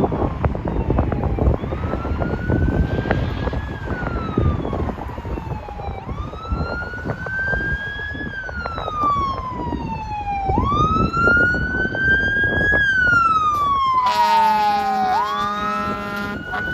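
Fire truck siren wailing, its pitch rising and falling about every four to five seconds over a low rumble. About fourteen seconds in, a long air horn blast sounds over the siren for about two seconds.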